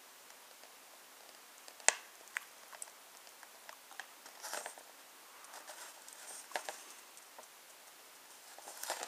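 Quiet handling noises: a sharp click about two seconds in, then a few small ticks and short rustles of a paper instruction sheet being moved.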